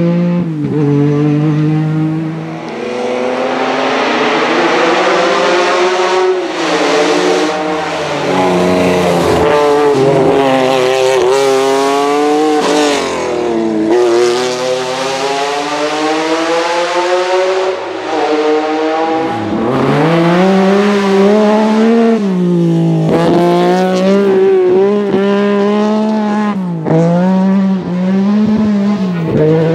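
Lancia Stratos rally car's V6 engine at full throttle, climbing in pitch and dropping back again and again as it shifts gears and lifts for corners.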